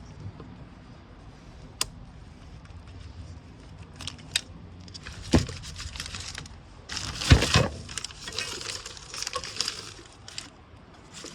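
Hands working on an engine wiring harness: scattered clicks of plastic connectors and clips, rustling and scraping of the loom, with a louder knock-and-rattle about seven seconds in.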